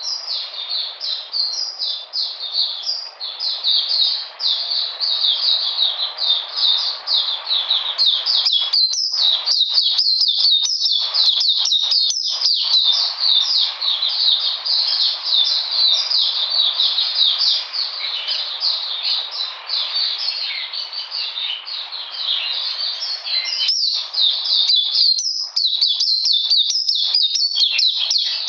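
White-eye (mata puteh) singing a long, fast, unbroken twittering song of quick high chirps, each note sliding down in pitch.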